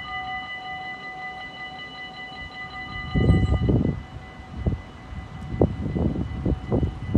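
Dutch level-crossing warning bell ringing with a steady, high ringing tone while the half-barriers lower; it stops about three and a half seconds in, once the barriers are down. Irregular low rumbles follow.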